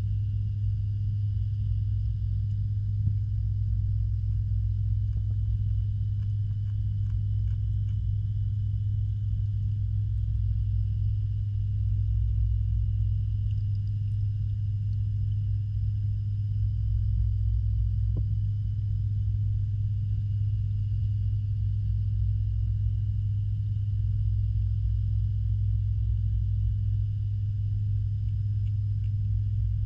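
Steady low hum and rumble heard underwater in a backyard fish pond, typical of the pond's pump and filtration running, with faint steady high-pitched whines over it.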